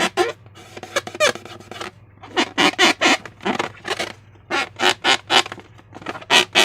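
Slime and a rubber balloon squeezed and worked by hand, giving a quick run of short squeaks and sticky squelches with brief pauses about two and four seconds in.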